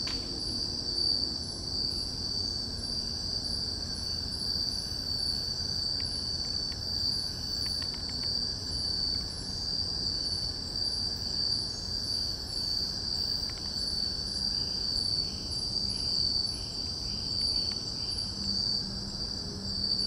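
Chorus of night insects in tropical forest: a continuous high-pitched steady trill, with fainter rhythmic chirping pulsing along beneath it.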